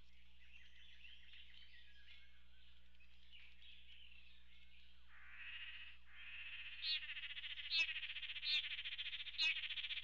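Male lance-tailed manakins giving a loud, buzzy, rapidly pulsing call during their courtship display, swelling in about halfway through, with sharper accents about once a second. Before it there is only faint high chirping.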